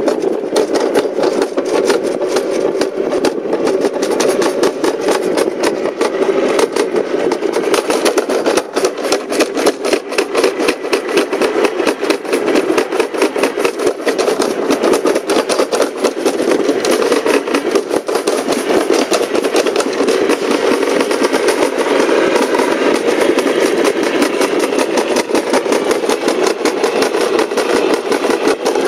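Summer bobsled running down a stainless steel trough track: a steady rumble with a fast, continuous rattle as the sled rides along the metal.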